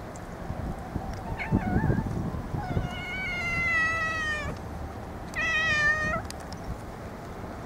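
A calico cat meowing: a brief chirp, then a long, drawn-out meow that falls slightly in pitch, and a shorter meow about a second later. A few low thumps come near the start.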